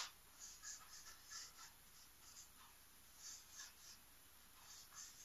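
Marker pen writing on a whiteboard: a string of faint, short, high-pitched squeaks and strokes as words and a number are written.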